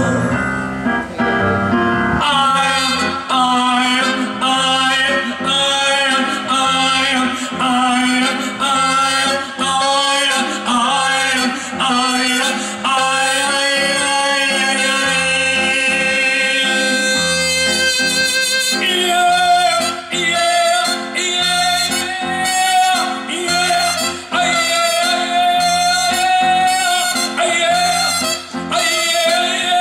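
Live ballad performance: a male singer sings over a band with a featured trumpet, and near the end he holds a long high note.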